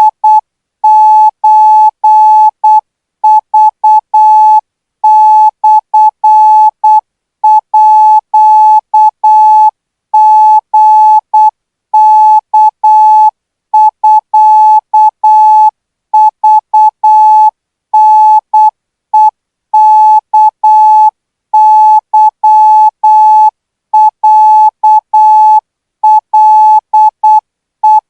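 Morse code practice signal: a single-pitch electronic beep keyed into short dits and long dahs, grouped into characters with short gaps between them. It is sent at 12 words per minute as Thai-language Morse training.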